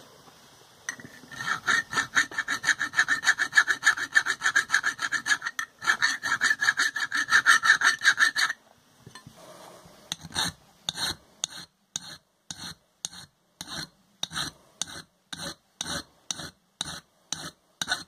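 A hand file rasping across the edge of a cast silicon bronze belt buckle, deburring the rough casting. It starts with fast back-and-forth strokes that give a screechy metal-on-metal rasp, with a brief break in the middle, then after a pause slows to separate strokes about two a second.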